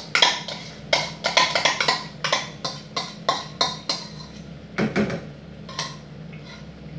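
Wooden spoon knocking and scraping against a bowl and a frying pan as crème fraîche is spooned into the sauce. Quick wooden taps come several a second for about four seconds, then a few scattered ones.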